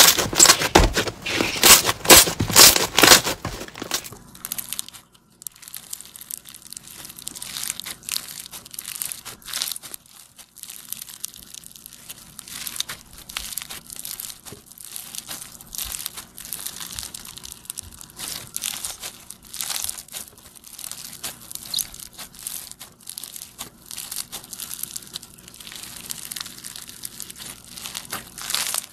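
Slime being squeezed and kneaded by hand with a crackling, crunchy sound. For about the first four seconds a blue slime is squeezed with loud, dense crackles. After that, foam-bead slime is pressed and stretched with quieter, continuous crackling as the beads crunch and pop.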